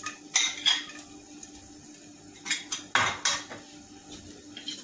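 Metal spoon clinking and scraping against a ceramic plate as chopped garlic is pushed off it into a frying pan: a few sharp clinks, loudest about three seconds in.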